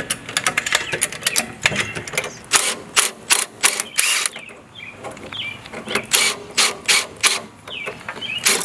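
Floor jack being pumped, its mechanism clicking and clanking in repeated strokes: groups of sharp clicks with short pauses between them.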